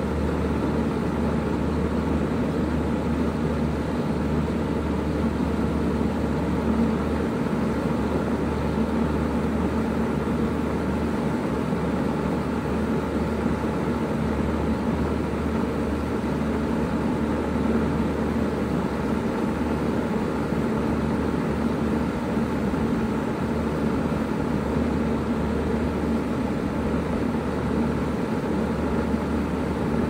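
Bard 2.5-ton wall-hung heat pump running steadily in heat mode: an even, deep mechanical hum with a steady tone above it.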